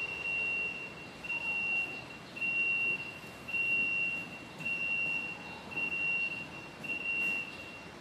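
Electronic beeper sounding a series of seven long beeps at one high pitch, about one a second.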